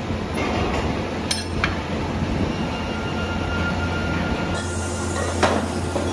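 Factory machinery running steadily with a low hum, broken by a few sharp metallic clinks and knocks; the sound changes abruptly about four and a half seconds in.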